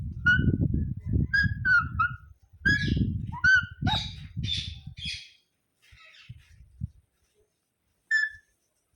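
Indian ringneck parrot calling: a quick string of short squawks and chirps over about five seconds, over a low rumbling noise, then a pause and one more short call near the end.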